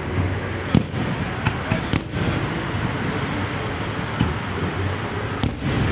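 Fireworks going off: a few sharp bangs, about a second in, two seconds in and near the end, over a steady wash of noise from the display.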